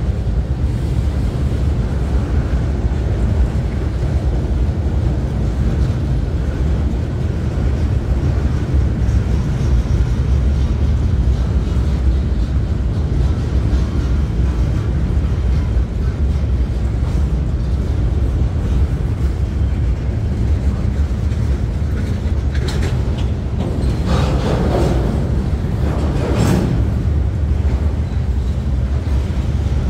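Freight cars of a slow-moving manifest train rolling past, their wheels making a steady low rumble on the rails. A few brief, sharper noises come about three-quarters of the way through.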